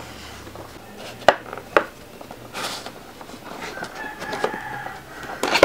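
Cardboard box being opened by hand: two sharp clicks a little over a second in, a rustle and scrape of cardboard, then a drawn-out whining tone from about three and a half seconds in, and more snaps of the flaps near the end.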